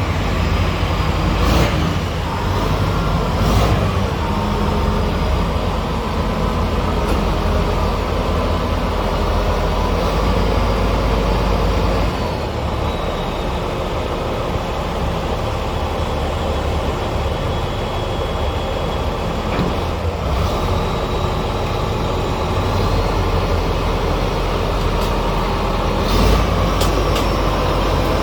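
Komatsu D85ESS bulldozer's diesel engine running steadily, with a faint high whine over the low rumble and a few sharp metallic clanks.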